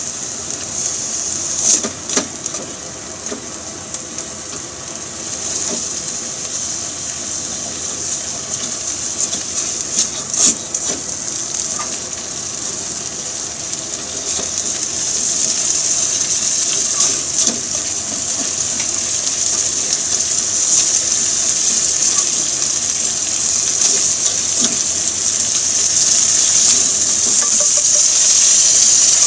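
Melting cheese and milk sizzling in a nonstick frying pan over a gas flame while being stirred with a silicone spatula; the sizzle grows louder about halfway through, with a couple of sharp clicks early on.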